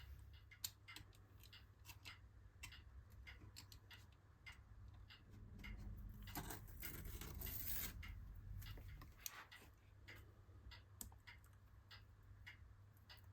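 Faint small clicks, ticks and scratches of old adhesive tape being picked and peeled off a bonded iMac screen and frame, with a longer, slightly louder peeling scrape about six to eight seconds in.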